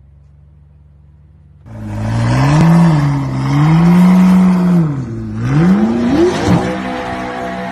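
Lamborghini engine idling with a low, quiet hum, then revved hard from a little under two seconds in: the pitch climbs and drops in several revs before settling at a steadier, higher speed near the end.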